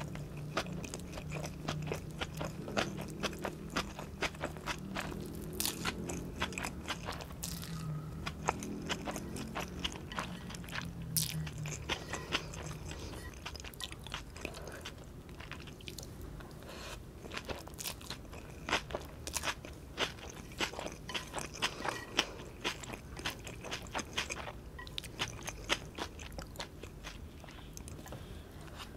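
Close-miked chewing of Maggi goreng (fried instant noodles): steady chewing with many small, sharp crunches.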